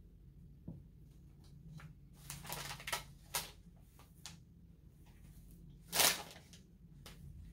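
Clear plastic bag of preserved sheet moss crinkling as a hand reaches into it: short rustles about two and a half and three and a half seconds in, and a louder crinkle about six seconds in.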